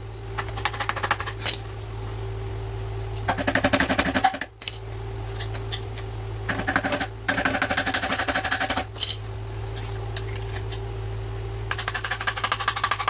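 Hammer tapping fast and repeatedly, metal on metal, to drive a suspension bushing out of an ATV A-arm, in five spells of rapid taps about a second each, over a steady hum.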